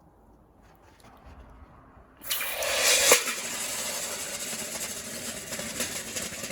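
Gas-fired foundry furnace burner coming on suddenly about two seconds in, then running as a steady rushing hiss.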